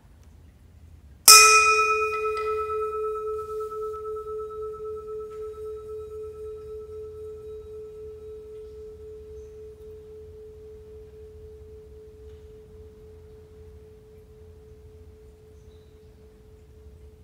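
A metal singing bowl is struck once with a striker, about a second in. It rings with a low main tone and fainter higher overtones, wavering in a quick pulse as it slowly fades toward silence.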